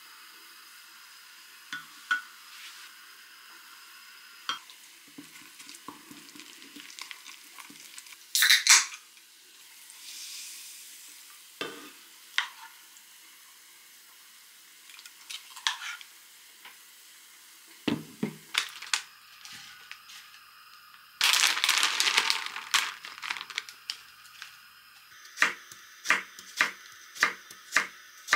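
Wooden spoon stirring and scraping a thick gochujang sauce in a glass mug, with scattered clinks and taps, and a louder burst of noise lasting about two seconds past the middle. Near the end, a kitchen knife chopping cucumber on a wooden cutting board in a steady rhythm of cuts.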